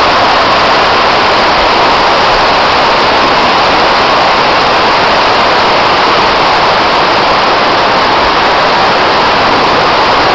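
Steady, loud rush of water pumped in a thin sheet over an artificial standing-wave surf ride, even and unbroken throughout.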